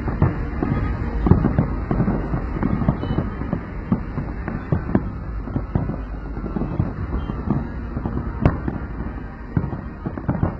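Fireworks display: a dense, continuous run of bangs and crackles, with one especially sharp report about eight and a half seconds in.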